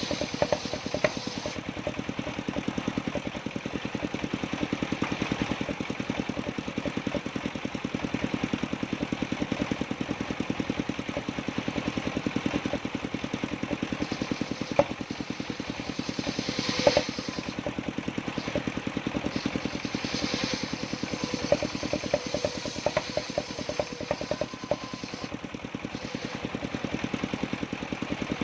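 Engine driving a portable circular sawmill, running steadily with a fast even pulse, with a few sharp knocks and clatters, the loudest about 17 seconds in.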